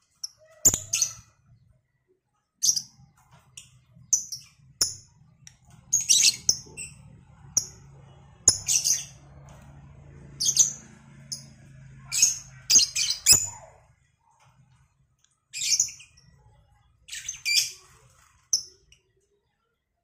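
Two caged lovebirds, a cobalt and a 'Batman' colour variant, calling back and forth with short, shrill chirps that come in quick clusters with brief pauses between them.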